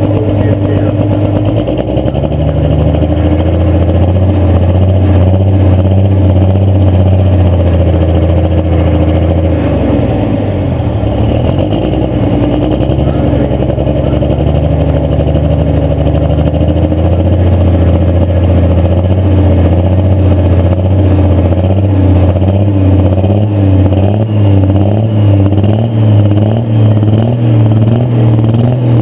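Pulling tractor's engine running loud and steady, heard from on board. The revs sag and climb back about ten seconds in, and the engine note wavers in a quick, even pulse near the end.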